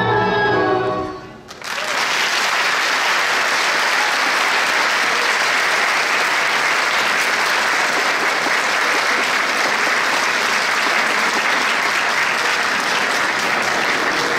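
Live folk dance music ends about a second in, and a theatre audience then applauds steadily.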